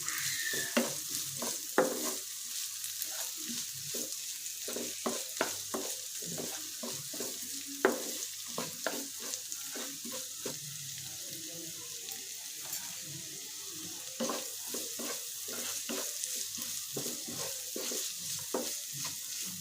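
Chopped onions frying in oil in a non-stick pan, a steady sizzle, while a spatula stirs them with frequent scrapes and taps against the pan.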